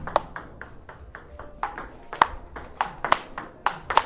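Table tennis ball being struck with rubber-faced bats in forehand topspin loops and bouncing on the table, a quick run of sharp clicks several times a second.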